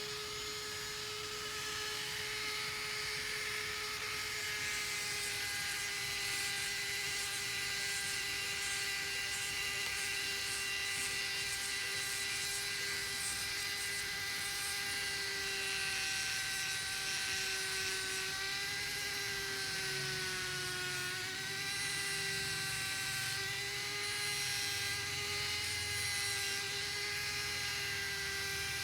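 Small handheld electric power tool running continuously with a steady high whine. Its pitch sags and wavers briefly around twenty seconds in, as if under load, then recovers.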